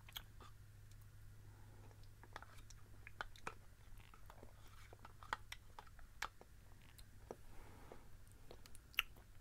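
Close-miked mouth sounds of someone eating yogurt with a metal spoon from a plastic cup: soft, scattered smacks and clicks of lips and spoon, with a sharper click near the end, over a low steady hum.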